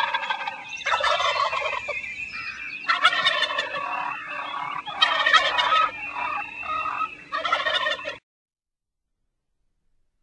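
Turkey gobbling: a series of loud, rattling gobbles that cuts off suddenly about eight seconds in.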